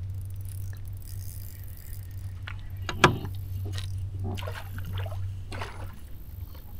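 A sharp knock about three seconds in, then a run of lighter clicks and rattles of gear in a fishing boat, over a steady low hum.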